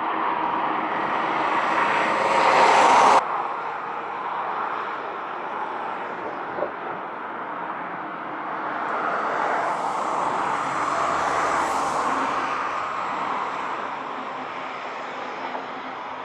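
Steady outdoor rush of distant vehicle noise. It builds to a peak about three seconds in and then cuts off abruptly, and swells again near the middle.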